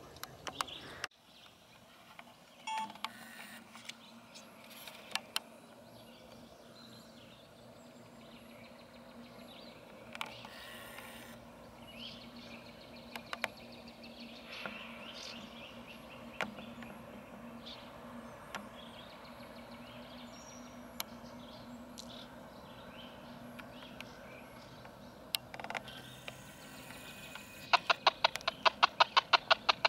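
Distant CSX GE ES44AH diesel locomotive running with a steady low hum, with faint bird chirps and scattered clicks. Near the end, the freight cars' wheels begin clacking rapidly and evenly over the bridge rails.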